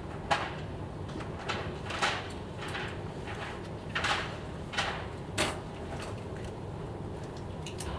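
About eight short, sharp clicks at uneven intervals over a steady low background hum, the first the loudest.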